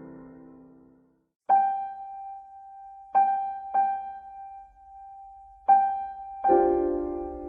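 Background piano music: a chord fades out into a moment of silence, then a single high note is struck four times, each ringing away, before a fuller chord comes in near the end.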